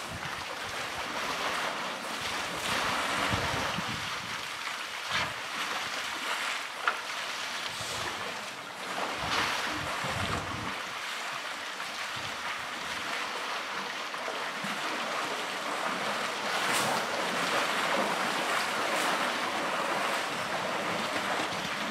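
Water sloshing and splashing as African elephants wade and drink, over a continuous wash of noise, with wind buffeting the microphone now and then in the first half. A single sharp click comes about seven seconds in.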